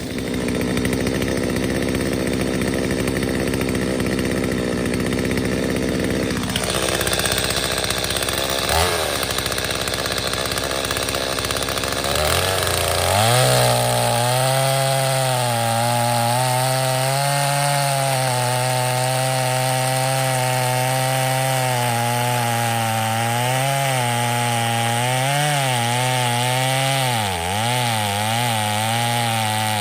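Gas chainsaw running, then revved up about thirteen seconds in and held at high revs as it cuts into a log round, its pitch dipping and recovering as the chain bites into the wood.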